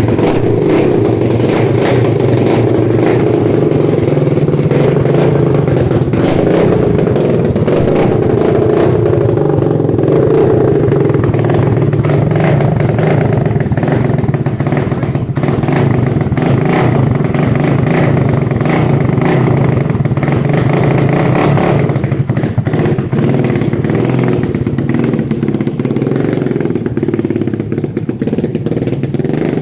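Honda ATC350X's single-cylinder four-stroke engine running loud and steady with no muffler fitted, on its first run after a top-end rebuild.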